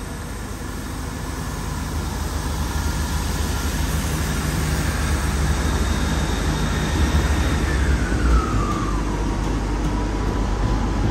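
East Midlands Railway Class 158 diesel multiple unit pulling away, its underfloor diesel engines growing louder as it gathers speed. A whine falls in pitch about eight seconds in, then holds steady.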